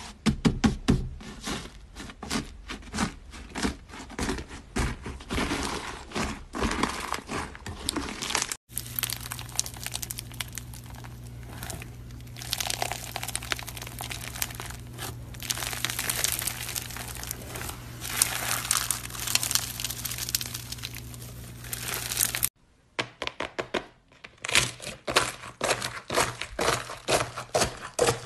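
Slime being squeezed and worked by hand, giving rapid crackling and popping clicks. The sound changes abruptly twice: about nine seconds in it becomes a denser, continuous crackle over a low hum, and after a short quiet gap near the 23-second mark the sharper clicking returns.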